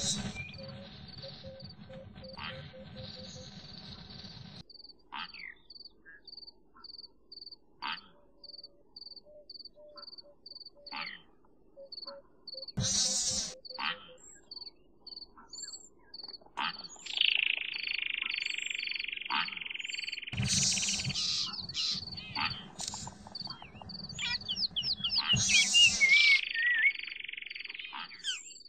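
Insect chirping: a high, even chirp repeating about twice a second. Louder calls and noise break in now and then, with a run of short high rising-and-falling calls near the end.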